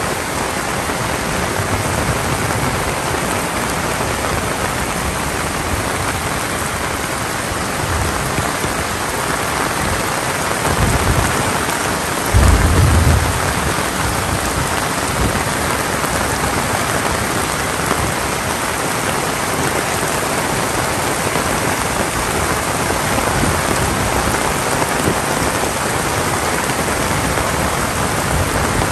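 Heavy rain falling steadily in a dense, even hiss. About halfway through come two short low rumbles, the second the loudest moment.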